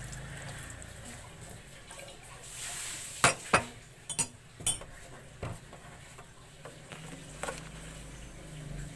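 A metal spoon clinking against a ceramic cup: a handful of sharp clinks in quick succession about three to five seconds in, then a few fainter taps.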